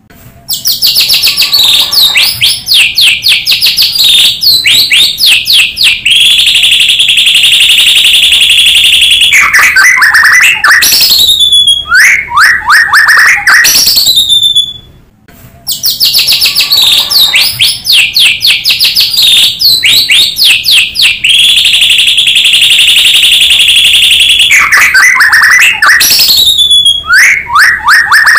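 White-rumped shama (murai batu) song, loud: rapid chattering notes, a long steady high trill, then falling whistled sweeps. The phrase of about fifteen seconds plays twice almost identically after a brief break, a looped lure recording meant to set other shamas singing.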